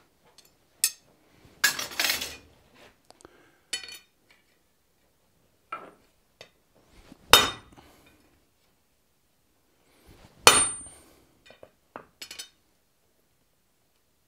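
Hand-hammer blows on a steel master held in a hot 4140 steel die block on the anvil, struck one at a time and spaced a few seconds apart to sink the master's impression into the die. The heaviest strikes come about seven and ten seconds in, one leaving a brief high ring, with lighter metal clinks in between.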